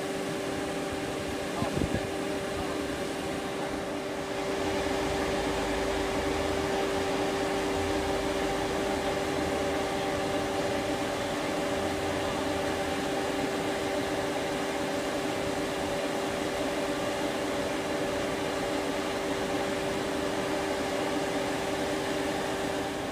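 Large block band saw (log bandsaw mill) running but not yet cutting: a steady machine hum with a few fixed tones. A low rumble underneath grows slightly louder about four seconds in.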